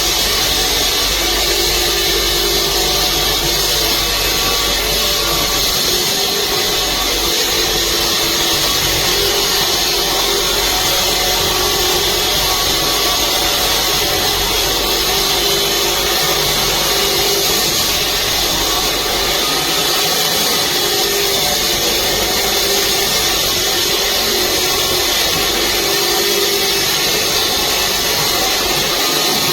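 VEVOR 12-inch 1800 W electric concrete saw running steadily at full speed, a loud even power-tool whine with a hissing top that holds level throughout.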